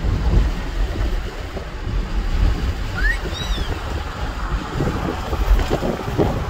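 Wind blowing across the microphone, a steady rush strongest in the low end. About three seconds in there is one short, high rising-and-falling chirp.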